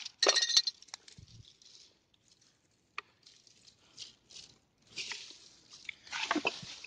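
Shards of broken glass clinking together as they are picked up by hand from among dry leaves and twigs. A quick, loud cluster of clinks comes near the start, then scattered lighter clinks and rustling.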